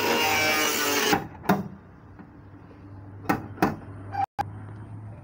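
Loud motor noise that cuts off about a second in. It is followed by sharp metallic knocks from a slide-hammer dent puller being jerked against its stop on a car body panel: one knock, then a close pair about two seconds later.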